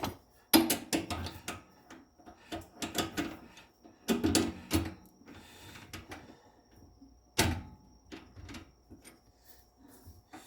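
Hand tools and cue parts being handled: clusters of sharp clicks, taps and knocks, the loudest single knock about seven seconds in.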